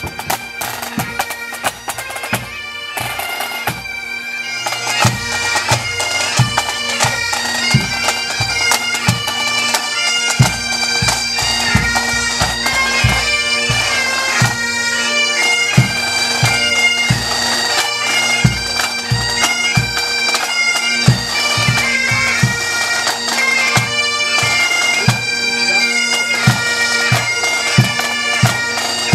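Pipe band playing: Great Highland bagpipes sounding a tune over their steady drones, with snare drums, tenor drums and a bass drum beating time. The band grows louder over the first few seconds.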